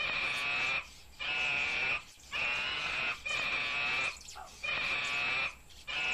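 An animal calling over and over, about once a second: six calls in a row, each held for nearly a second on a high, strong pitch, with short gaps between.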